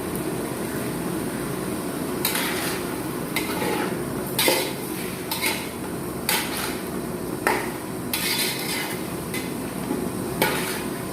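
A metal spoon or spatula stirring vegetables in a cooking pan, with about ten irregular scrapes and knocks against the pan, a second or so apart.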